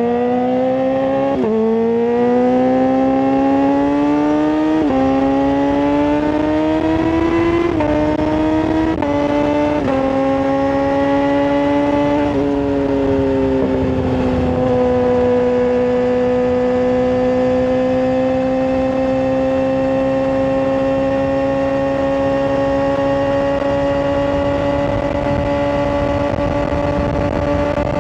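Yamaha R6 inline-four sport bike with a full aftermarket exhaust accelerating hard, the engine note climbing and dropping back with each upshift, about six times in the first twelve seconds. It then runs at steady revs for the rest of the time, the pitch creeping up slowly.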